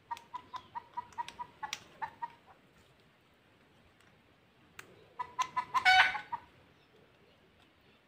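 A green parakeet mimicking a rooster: two runs of quick clucking calls, the second ending in a louder call.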